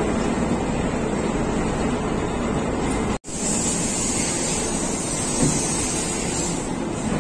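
Steady mechanical din of a cement-bag loading conveyor running as bags come down onto a truck, cutting out for an instant about three seconds in, with a higher hiss for a few seconds after.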